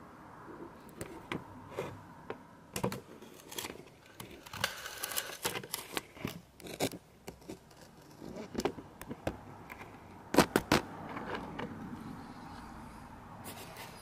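Handling noise from a camera and lamp on a pole being worked through a hole in a concrete floor: irregular scrapes, clicks and knocks, with a quick cluster of sharp clicks about ten and a half seconds in.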